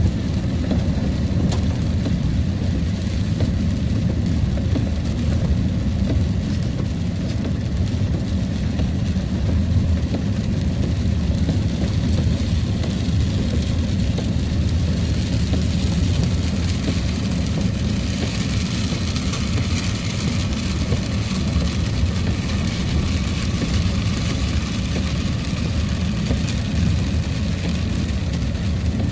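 Truck driving on a wet road, heard from inside the cab: a steady low rumble of engine and tyres, with a higher hiss that swells from about halfway through and eases near the end.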